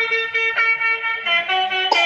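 Telolet basuri-style bus horn sound from a miniature bus model set to music play mode, playing a melody. It holds one reedy note for about a second, then steps quickly through changing notes, with a sharp click near the end.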